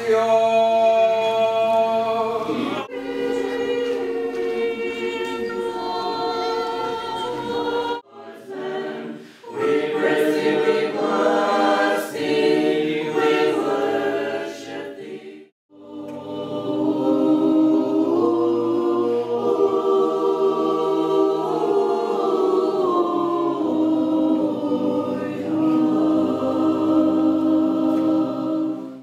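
Mixed choir singing Orthodox liturgical chant a cappella, in long held phrases with short breaks about eight and fifteen seconds in.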